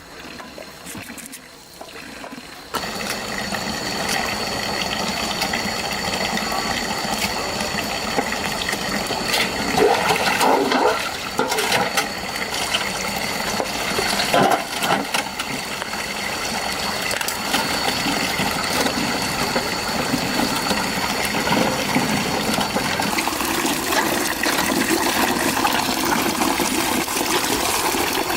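Water running in a steady stream, starting suddenly about three seconds in, with louder uneven splashing around ten and fourteen seconds in.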